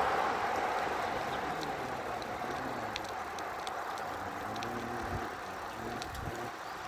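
Steady rushing noise of wind and movement on the phone microphone while travelling along an open road, easing slightly, with scattered faint high ticks.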